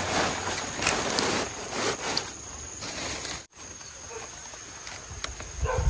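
Leafy greens and big leaves rustling and crackling in several bursts as they are handled and pressed into a bamboo basket; the rustling cuts off abruptly about halfway through, followed by a quieter stretch with light ticks. A short animal call starts right at the end.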